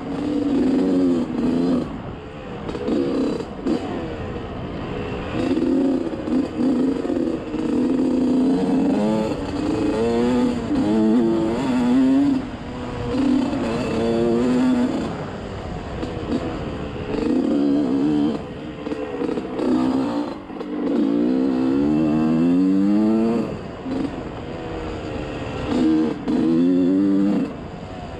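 Small off-road vehicle engine running on a trail ride, revving up and down over and over: its pitch climbs under throttle, then falls back when the throttle is let off or a gear is changed.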